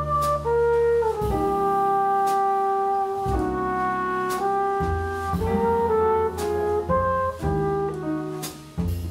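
Jazz quartet playing: a flugelhorn carries the melody in changing notes over piano, walking double bass and drums.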